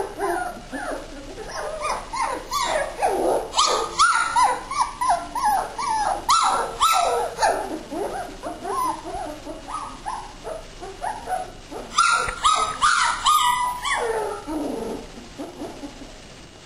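German Shorthaired Pointer puppies whining and yelping, a dense run of short high cries several a second, with a burst of sharper yelps about twelve seconds in before they die down near the end.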